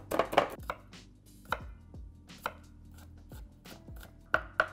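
A chef's knife chopping garlic on a wooden cutting board, sharp separate strikes about once a second. In the first second, quicker knocks of a whisk mashing avocado in a glass bowl.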